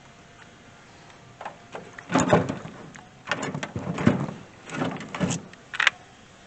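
A car battery being set into place, knocking and scraping in a string of bumps and slides and ending with a short sharp click.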